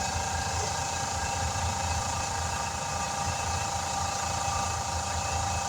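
Wheel balancer spinning a tire and wheel, coasting slowly down after being released, over a steady engine hum; the pitch stays level.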